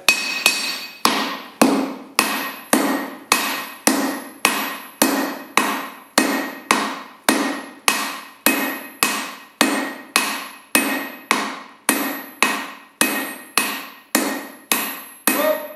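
Steady hammer blows on hot steel on an anvil, about two a second: a smith's hand hammer and a striker's sledgehammer, each blow ringing briefly. This is the sound of drawing out the working end of a top fuller.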